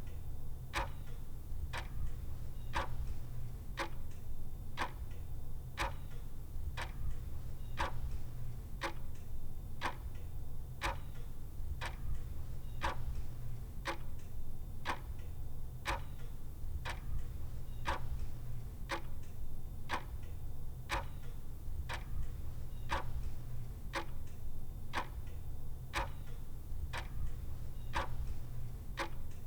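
Clock ticking steadily, a sharp tick about once a second with fainter ticks between, over a steady low hum.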